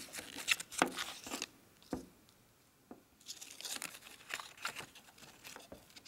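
A small folded paper instruction leaflet being handled and unfolded, rustling and crinkling in two spells, with a single light tap about two seconds in.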